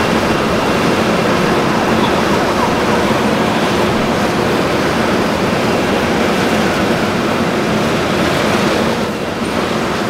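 Industrial exhaust fan running: a loud, steady rush of air with a low hum underneath, dipping slightly about nine seconds in.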